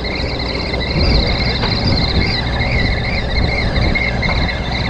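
Steady low rumble of a party boat's engine, with a wavering high whine running over it.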